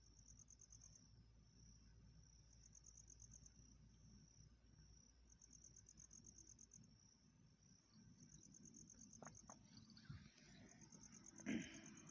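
An insect, cricket-like, chirping in trains of rapid high-pitched pulses about a second long, repeating every two to three seconds. A short knock sounds near the end.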